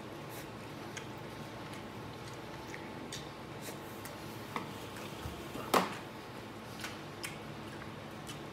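A person chewing a mouthful of braised intestine stuffed with scallion, with scattered soft clicks and mouth smacks; the loudest click comes a little before six seconds in.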